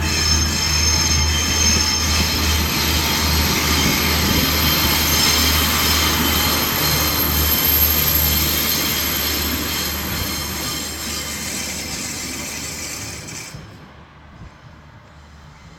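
Class 142 Pacer diesel multiple unit running along the platform, its wheels squealing loudly on the curved track in several high-pitched tones over the low drone of its underfloor diesel engine. The squeal cuts off suddenly about 13 seconds in and the train fades as it pulls away.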